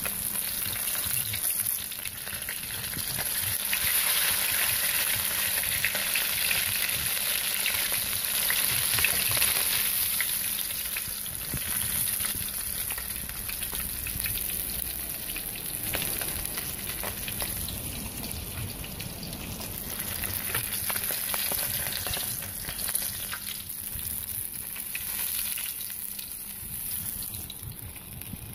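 Breaded kissing gourami (cá mùi) deep-frying in hot oil, sizzling steadily. The sizzle is loudest in the first third and eases somewhat after that.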